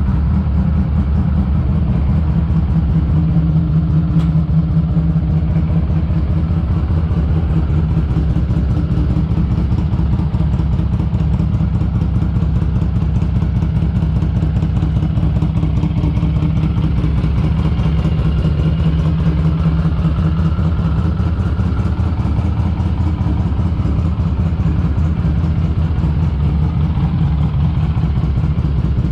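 Harley-Davidson Street 500 V-twin with a TAB Performance aftermarket exhaust running at riding speed, its note rising and falling a little, heard under heavy wind buffeting on the camera's built-in mic.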